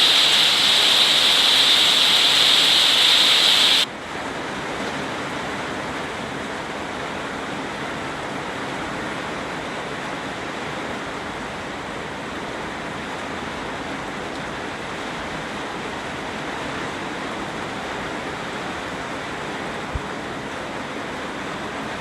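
Rain falling as a steady hiss. A louder, brighter hiss cuts off suddenly about four seconds in and gives way to a softer, even rain sound, with a single faint tick near the end.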